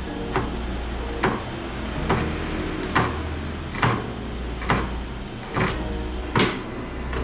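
Kitchen knife slicing shallots on a plastic cutting board: eight even knocks of the blade on the board, a little under a second apart, over a steady low hum.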